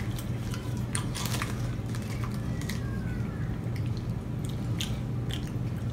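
Scattered soft clicks and crackles of burger wrapper paper being handled and a greasy, disintegrating burger being picked up, mixed with chewing, over a steady low hum.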